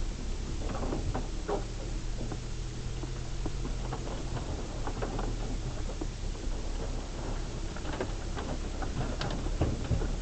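VW Amarok driving over a rough forest track: a steady low engine and road drone with scattered irregular knocks, clicks and rattles, thickest near the end.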